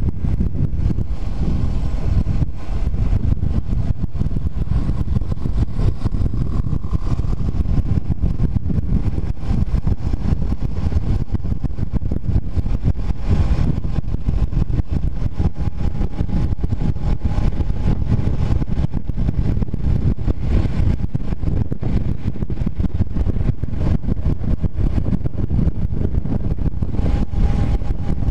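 Honda CBR250R's single-cylinder engine running at a steady cruise on the highway, under a constant rush of wind and road noise at the camera.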